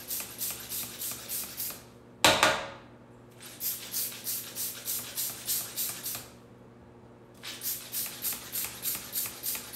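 Handheld piston glitter pump puffing edible glitter in quick strokes, about four hissing puffs a second, in three runs with short pauses between them. One louder, sharper burst about two seconds in.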